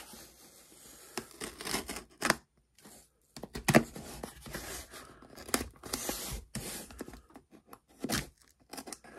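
Snap-off utility knife cutting and scraping through packing tape on a cardboard box, with irregular scratches, tape rasps and sharp clicks as the box is handled.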